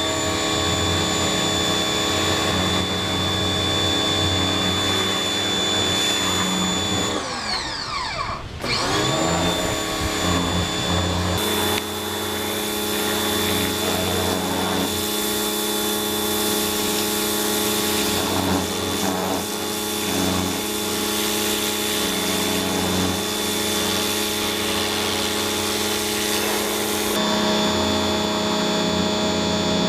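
GreenWorks GPW1600 electric pressure washer running with a steady high motor whine. About eight seconds in, the motor winds down and spins back up.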